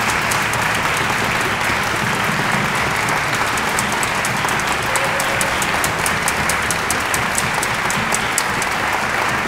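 An audience applauding steadily: dense hand clapping with some single sharp claps standing out.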